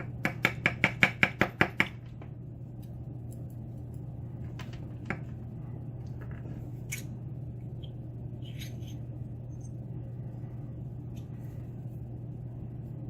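A rapid run of about ten sharp metallic taps, about six a second, as a lock cylinder is worked to free its pins, then a few faint clicks and ticks of small parts being handled, over a steady low hum.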